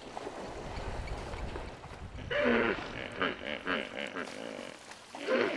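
Hippopotamus giving a series of deep, repeated grunting calls, after a couple of seconds of low rumbling.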